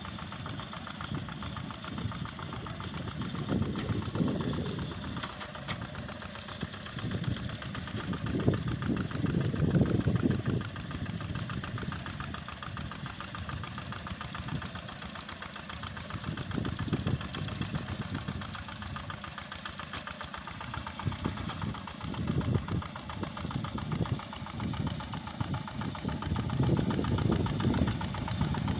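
Two-wheel walk-behind hand tractor's single-cylinder diesel engine chugging steadily as it tills a wet rice paddy, its low rumble swelling louder and easing off several times.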